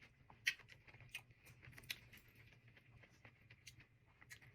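Close-up chewing of crunchy raw vegetables: irregular crisp crunches and mouth clicks, the sharpest about half a second in and again near the two-second mark.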